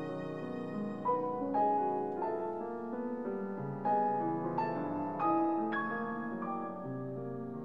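Slow, soft solo piano music: single notes and chords struck one after another, each left to ring on.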